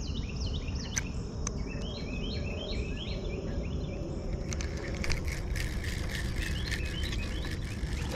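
Songbirds singing in repeated short chirping phrases over a steady, high insect drone. A few sharp clicks come about one and five seconds in, and a low rumble runs underneath.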